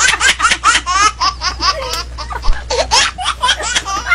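Several people laughing hard together in quick, high-pitched bursts of a few a second, easing briefly in the middle and then picking up again.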